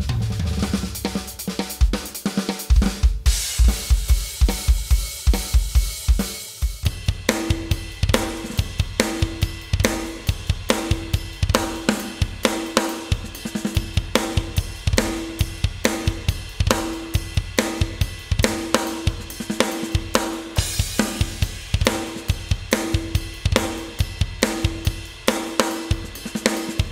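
Sampled drum-kit sounds played live on electronic drum pads: kick, snare, hi-hat and cymbals. The sounds come first from a Roland TD-30 module and then from EZdrummer 2 software. A cymbal wash over kick hits gives way to a new steady groove about a quarter of the way in.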